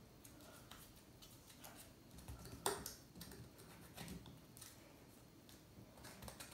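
Faint clicks and taps of foam darts being pushed into the plastic holes on the back of a Porcupine Pop toy, with one louder click a little under three seconds in.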